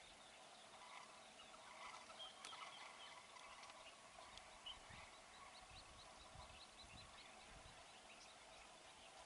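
Faint outdoor background: a steady hiss with scattered distant small-bird chirps, a short run of evenly spaced high ticking calls after the middle, and a few soft low thumps in the second half.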